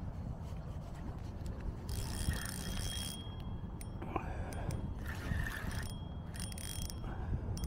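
Fishing reel being cranked in short bursts, each with a thin mechanical whine, as a hooked walleye is reeled in, over a steady low rumble.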